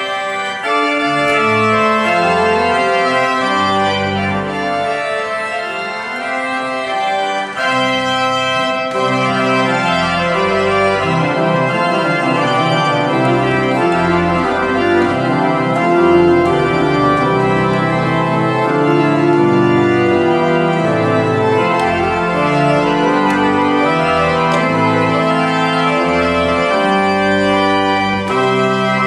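Pipe organ improvisation: full sustained chords played on the manuals over low bass notes, the harmony changing every second or so at a steady loud level.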